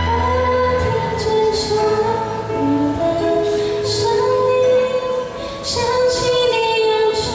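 A woman singing a Mandarin pop ballad into a microphone over an instrumental backing, holding long notes.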